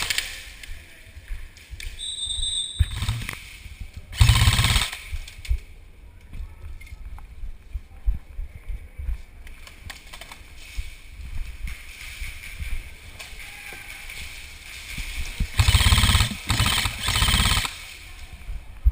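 Airsoft rifle firing rapid full-auto bursts: a short burst about four seconds in and a longer one near the end. Between the bursts there is low handling and movement noise.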